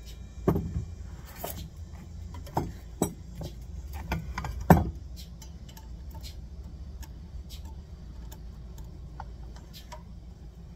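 Steel bearing and hub parts knocking and clinking as a wheel bearing is worked and tapped into a tight-fitting minibike rear hub. There are several sharp knocks in the first five seconds, the loudest just under five seconds in, then lighter ticks.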